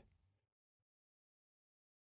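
Digital silence between narration lines.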